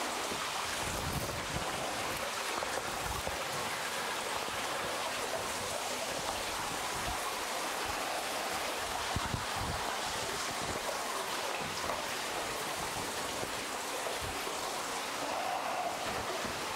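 Steady rush of water running and falling inside a cave, with a few dull low bumps.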